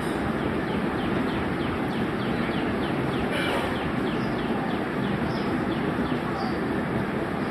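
A bird chirping over and over, a quick run of short falling notes about three or four a second, over a steady background noise.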